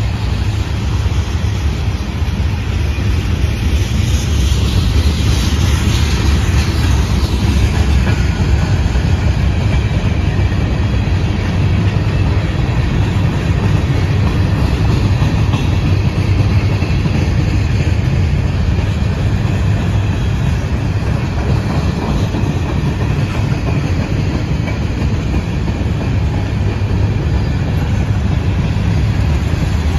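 Freight cars of a passing manifest train rolling by: a steady, loud rumble and rattle of steel wheels on the rails.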